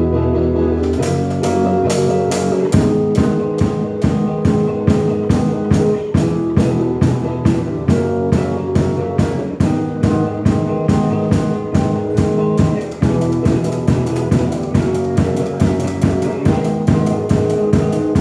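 Worship-song band music. Sustained chords with bass and guitar play, and a drum kit comes in about a second in, keeping a steady beat with regular cymbal strokes.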